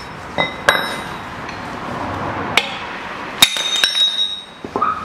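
Steel-on-steel hammer blows and clinks as a hammer strikes a steel sleeve to drive the worn front wheel hub bearing out of the steering knuckle. There are about six or seven sharp metallic knocks, several of them ringing briefly.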